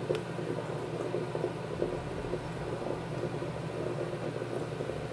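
Homemade aluminium beer-bottle alcohol jet stove burning steadily under a stovetop espresso pot, its flames making an even rushing noise while the water in the pot is starting to bubble.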